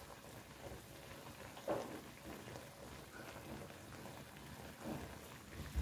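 Fish paksiw simmering in its broth in an open wok, giving a faint, steady bubbling and crackling.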